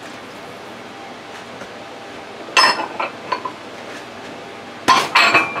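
Dishes clinking and clattering: a burst of knocks and clinks about two and a half seconds in, a couple of lighter clinks after it, and a louder clatter near the end with a brief ringing tone.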